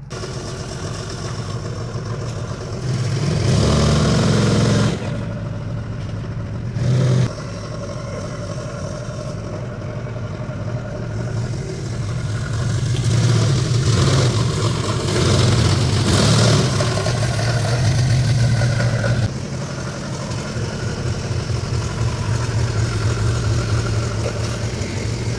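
Forklift engine running, revving up for a couple of seconds about three seconds in and again for longer through the middle, with a brief loud clunk about seven seconds in.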